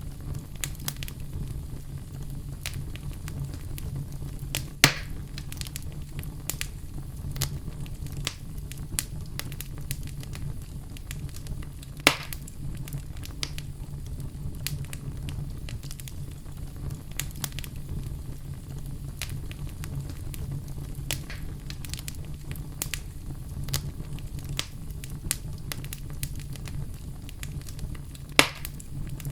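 Wood fire in a fireplace crackling, with many small snaps over a steady low rumble. Three much louder pops come about five, twelve and twenty-eight seconds in.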